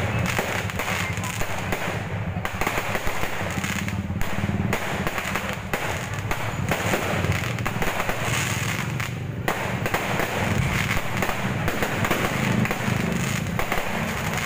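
Fireworks going off in quick succession, a dense run of pops and crackles with no pause.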